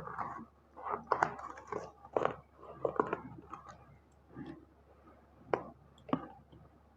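Tightly sealed plastic packaging of a paint-brush set being worked open by hand, crinkling and crackling irregularly with several sharp snaps.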